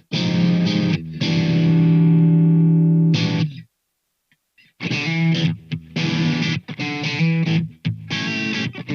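Tokai TST-50 Stratocaster-style electric guitar played with overdrive: a short chord, then a chord left to ring for about two seconds, a second's silence, then a run of short, choppy chords.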